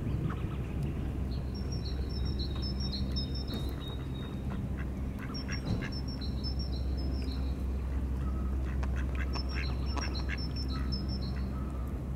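Ducks quacking in short clustered calls, with a small songbird's high, rapidly repeated phrases coming three times and a steady low rumble underneath.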